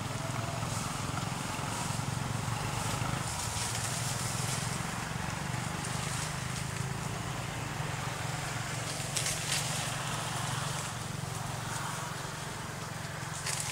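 Steady low engine hum, with a couple of short clicks about nine seconds in and near the end.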